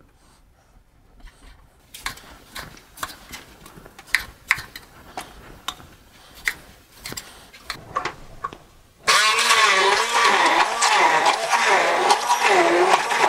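Knife cutting tomatoes on a wooden cutting board, a string of sharp taps, then about nine seconds in a hand-held immersion blender starts and runs loudly, pureeing tomatoes in a jug, its pitch wavering up and down.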